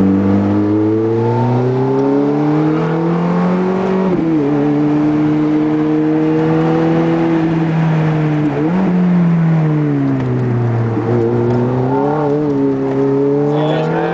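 Ferrari F430's 4.3-litre V8 pulling through the gears, heard from inside the car. Revs climb, drop sharply at an upshift about four seconds in, dip and jump up again about eight and a half seconds in, then fall as the car slows, and start to climb once more near the end.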